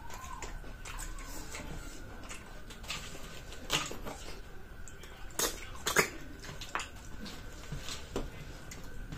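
Eating from a dish of snails: several sharp clicks and clinks at irregular moments, the loudest about six seconds in, over a low steady hum.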